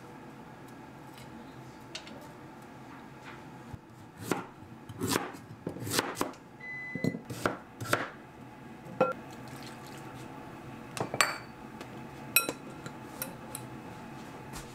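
Kitchen knife chopping raw kabocha squash on a wooden cutting board: a run of sharp knocks, most of them between about four and eight seconds in, and a few single knocks after that.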